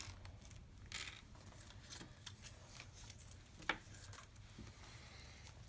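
Quiet handling noises: light rustling and a few soft clicks as hands move cardboard and small board game pieces, the sharpest click about two-thirds of the way through, over a faint steady low hum.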